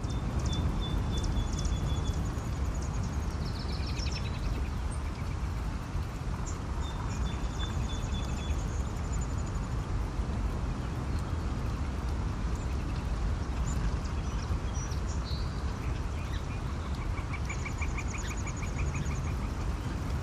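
Small birds chirping, with several short, rapid, high-pitched trills and chatters coming at intervals. They sound over a steady low rumble.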